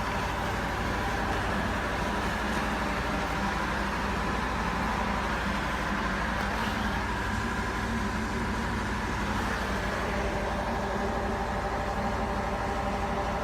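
Drilling-rig machinery running with a steady hum and drone that holds several constant tones.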